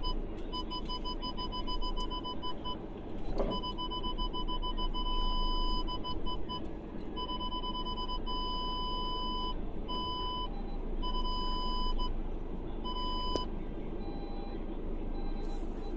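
Car parking-sensor beeper sounding irregularly, sometimes quick short beeps and sometimes a longer unbroken tone, set off by the grassy banks and brush close beside the narrow track. Under it is the steady low rumble of the car rolling slowly over the rough dirt surface, with a couple of knocks from bumps.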